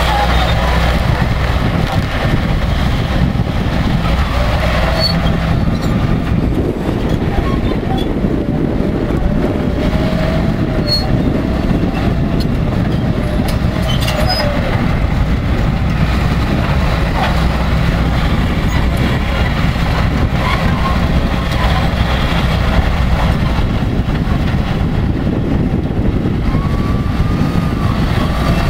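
Caterpillar crawler bulldozer's diesel engine running steadily under load as its blade pushes soil and brush, with the clatter of its steel tracks.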